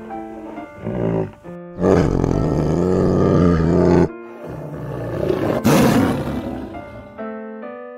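A big cat roaring in two long, deep, rough calls, the first about two seconds in and the second a little after four seconds, with a sharp loud burst in the middle of the second. Gentle piano music plays underneath and is heard on its own near the end.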